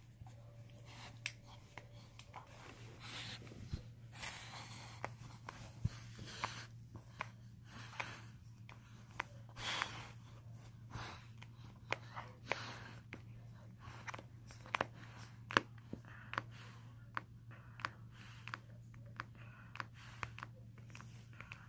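Dog chewing and gnawing a toy: irregular crunches and sharp clicks, several a second, with no squeak, because the toy's squeaker has been destroyed. A steady low hum runs underneath.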